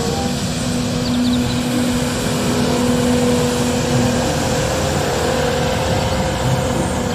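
Street sweeper truck sweeping the road, its engine and rotating gutter broom making a loud, steady drone with a humming tone that drops out about four seconds in.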